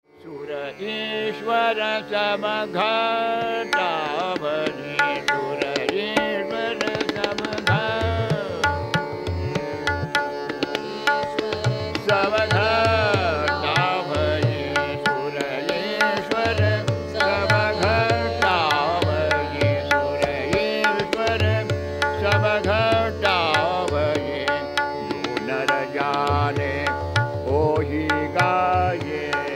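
Hindustani devotional singing by an elderly male vocalist over a steady tanpura drone, with ornamented, gliding vocal lines. Tabla strokes join about a quarter of the way in and settle into a steady accompanying rhythm.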